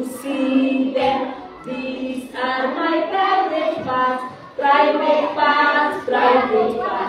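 A woman and a class of young children singing a song together in phrases, with short breaks between the lines.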